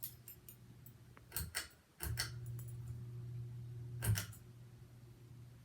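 Progress Lighting Builder ceiling fan: pull-chain switch clicks, and the motor's steady hum that jumps louder suddenly about two seconds in, then drops back after another click about four seconds in, as the fan is switched between speeds.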